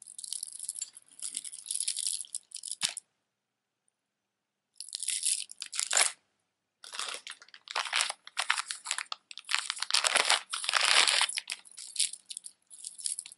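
Strands of plastic beads clattering and rustling against each other as a multi-strand bead necklace is handled, in irregular bursts with a brief silent gap about three seconds in.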